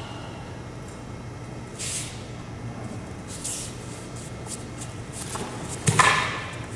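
Soft swishes and rustles of a kama-versus-staff karate weapons demonstration, then a sharp clack about six seconds in as the two men meet at close range, over a steady low hum.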